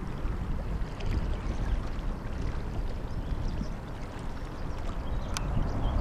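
Low, steady rumble of a distant four-engine jet, the KC-135R Stratotanker's turbofans, heard from the ground.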